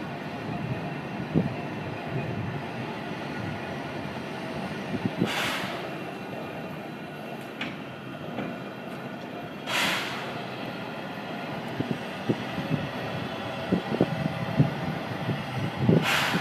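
Steam locomotive standing on a rotating turntable: a short hiss of escaping steam about every four to five seconds, over a steady low rumble with scattered clanks and knocks from the turning turntable.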